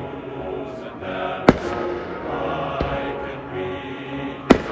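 Aerial fireworks going off: two sharp bangs about three seconds apart, with a weaker pop between them. Live music plays underneath throughout.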